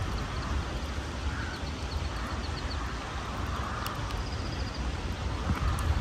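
Wind rumbling on the microphone, with a bird twittering faintly in short trills now and then.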